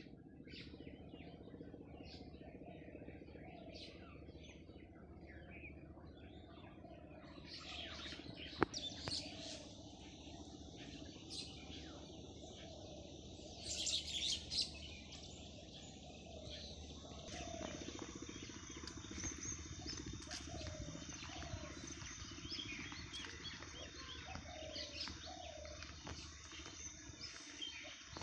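Birds chirping and calling over a steady low outdoor background. The background changes abruptly twice, there is a sharp click about eight seconds in, and a louder flurry of chirps comes near the middle.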